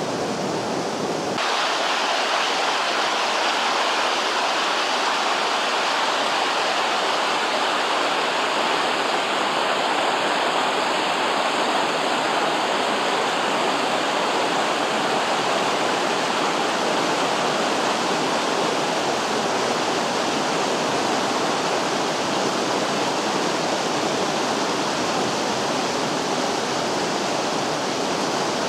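The Vydra, a rocky mountain river, rushing steadily over boulders and rapids, with a sudden shift to a brighter hiss about a second in.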